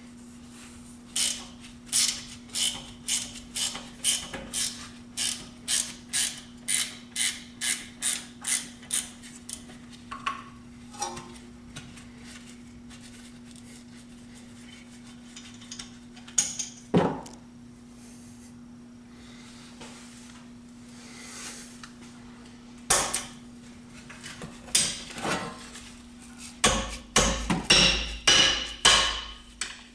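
A ratcheting wrench clicks about twice a second as it spins a rear brake caliper slide bolt out, with a steady low hum underneath. After a lull come single sharp metal knocks, then a quick run of clanks and dull thuds near the end as a screwdriver works at the caliper.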